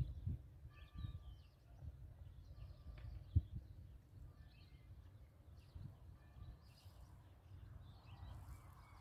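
Small birds chirping in short scattered calls over an uneven low rumble of wind on the microphone, with a single sharp knock about three and a half seconds in.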